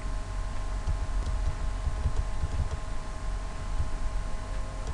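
Steady background noise of a desk recording setup: a low rumble with irregular soft low thumps, a faint steady two-tone electrical whine, and a few faint clicks.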